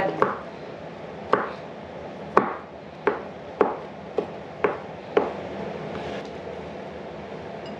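Chef's knife chopping soaked mushrooms on a plastic cutting board: about eight sharp knocks, one every half second or so, stopping about five seconds in.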